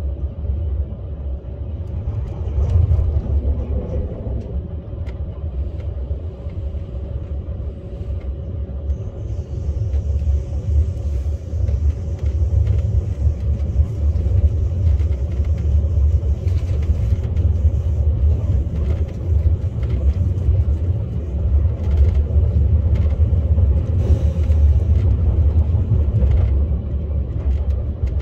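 KTX high-speed train running, a steady low rumble with a faint hum; a faint high hiss comes in about nine seconds in and fades near the end.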